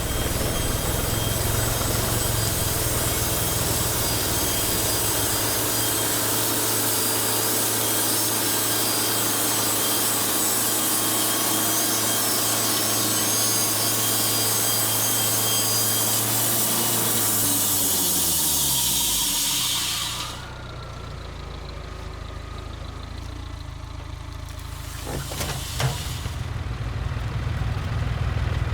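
Wood-Mizer LT70 band sawmill sawing steadily through a log, the blade's cutting noise over a steady engine hum. About two-thirds through, the cut ends and the pitch falls away as the machine slows, leaving a quieter running sound with a single knock, and the engine speeds up again at the very end.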